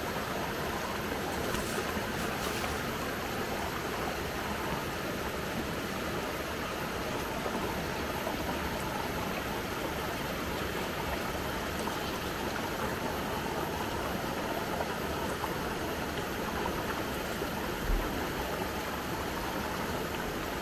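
Jungle river water running steadily over rocks, an even rushing noise. A brief low thump comes near the end.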